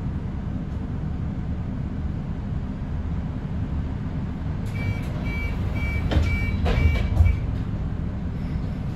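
Lower-deck cabin of an Alexander Dennis Enviro400EV electric double-decker bus: a steady low rumble. About halfway through comes a run of short, high, evenly pitched door warning beeps lasting about three seconds, with a couple of clunks from the doors.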